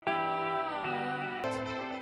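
Background music: sustained chords that start at once and change about every two-thirds of a second, with light percussion ticks coming in about halfway through.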